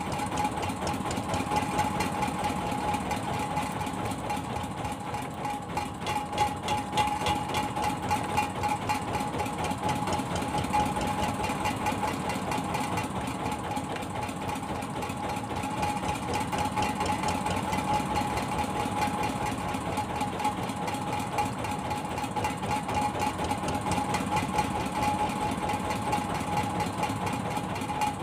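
Fishing boat's engine idling steadily, with a rapid, even chugging and a steady hum.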